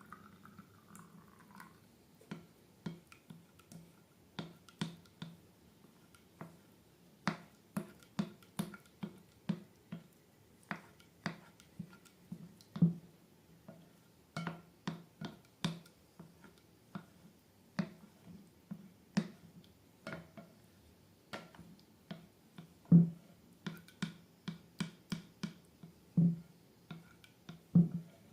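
Slime being worked by hand, giving a long irregular run of sharp clicks and pops from the sticky mass, some much louder than others.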